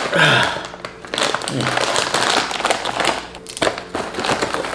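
Foil chip bag of Doritos being pulled open and crinkled, with chips rattling inside and a sharp click about three and a half seconds in.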